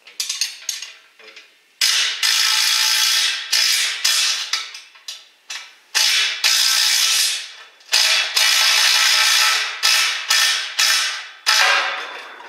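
Air-powered wrench running in repeated bursts of one to two seconds, stopping and starting again, a loud high-pitched hissing rattle.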